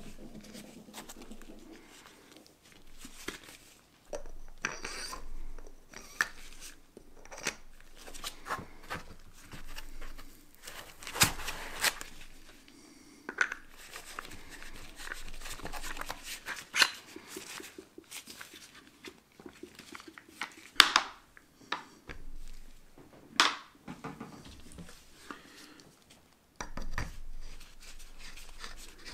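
Handling sounds of MOZA AirCross gimbal parts as gloved hands lift them from a foam-lined hard case and fit them together: scattered clicks, taps and clacks of metal and plastic pieces, with rubbing and rustling in between. The sharpest clacks come about halfway through and again later on.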